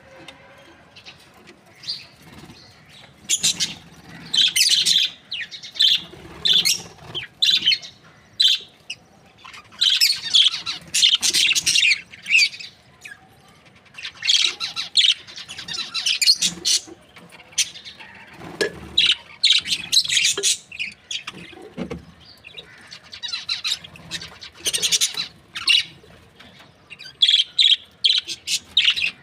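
Budgerigars chirping and chattering in quick bursts of high, warbling calls, with quieter gaps between the runs.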